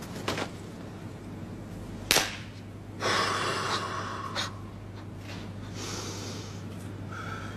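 A person's loud, drawn-out breath of about a second and a half, taken while striking a palms-together martial-arts pose. It comes shortly after a single sharp smack, which is the loudest sound, with a few small clicks and rustles around them.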